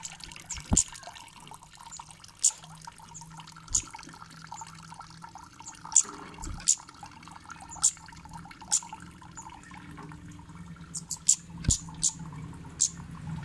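Cit kemade bird giving short, sharp, high-pitched 'cit' chip calls one at a time, a second or two apart, coming in a quicker run of several near the end, over a low steady hum.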